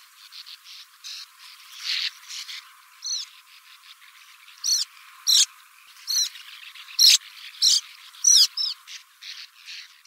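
Pale martin (Riparia diluta) calling: a run of short chirps, softer at first, with louder, sharper notes from about halfway.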